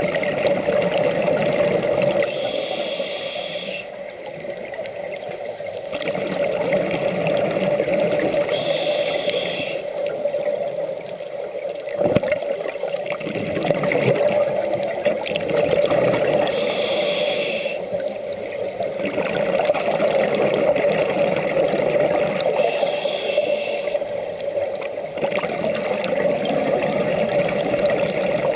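Scuba breathing heard underwater through a regulator: a rush of bubbles and hiss comes about every six seconds, once per breath, over a steady hum.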